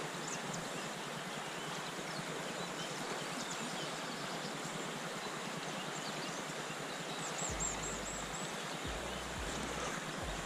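Steady rushing of a river's flowing water, with a faint low rumble joining in for the last few seconds.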